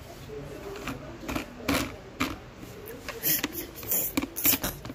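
Irregular clicks and clacks of plastic toy figures and a plastic toy house being handled, with several louder knocks in the second half.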